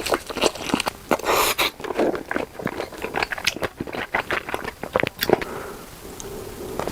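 Close-miked eating sounds of sausage being bitten and chewed: a dense, irregular run of crisp clicks, crackles and wet mouth noises.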